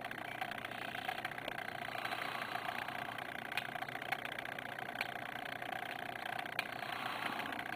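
A steady low hum with a faint hiss, broken by a few faint clicks.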